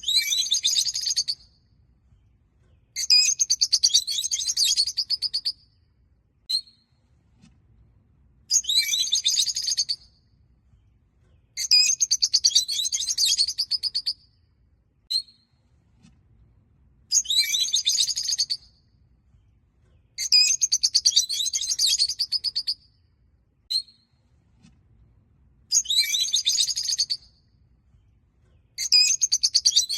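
Peach-faced (rosy-faced) lovebirds chirping: bursts of rapid high chirps lasting a second or two, about every three seconds, with single short chirps between them.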